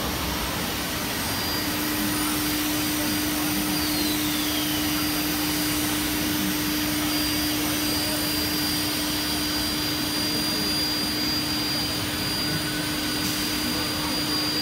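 Aluminium-profile CNC machining centre running, its spindle giving a steady whir with a steady hum that sets in about a second and a half in and holds.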